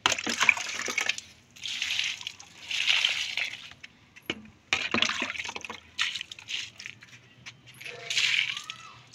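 Water poured over potted plants and splashing onto a concrete floor, in about six separate splashes of a second or less each.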